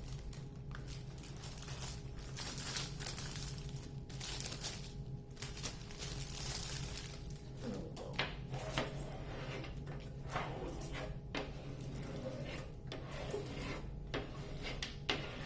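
Hands smoothing and pressing a diamond painting canvas flat under its plastic cover, the plastic film rustling and crinkling in irregular strokes.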